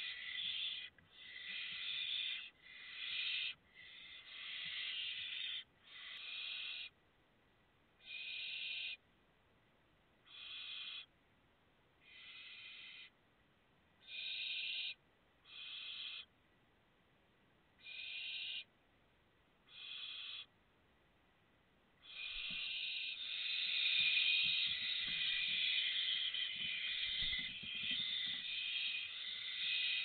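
Barn owl chicks giving hoarse, hissing begging calls, one rasp about every two seconds, each half a second to a second long. About two-thirds of the way in they break into a continuous, louder chorus of overlapping rasps, with a few low thumps.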